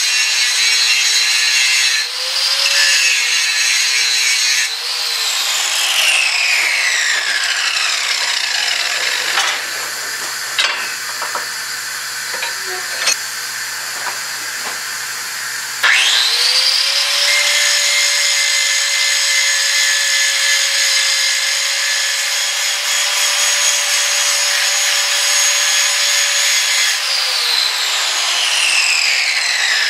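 Angle grinder grinding the faces of 5160 leaf-spring steel clean, its motor whining steadily. It is switched off about five seconds in and winds down, with a few clicks and knocks in the quieter stretch that follows. About halfway it is started again, spinning up quickly to a steady whine, and it winds down again near the end.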